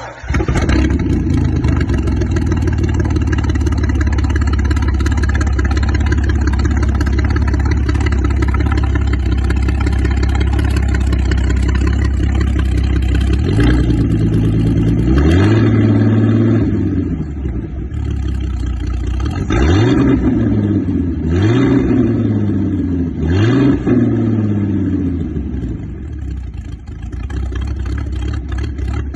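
Mercruiser 4.5-litre V6 marine engine catching just after starting and running steadily. About halfway through it is revved several times, each a quick rise and fall in revs, then it settles back to a steady run.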